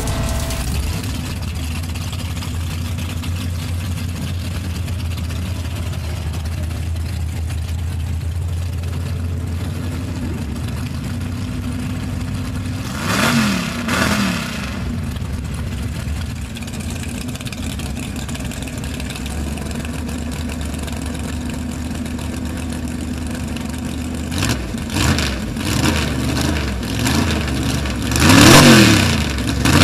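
Engine of a lifted 1940s Chevrolet mega truck idling with a steady low rumble. It is revved twice about halfway through, then revved again and again over the last several seconds, loudest near the end.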